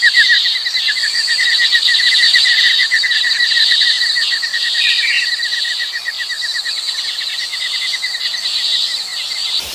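Outdoor nature ambience: a fast, even trill of chirps, about ten a second, over a higher steady insect buzz, the trill fading slightly as it goes. The sound cuts off abruptly near the end.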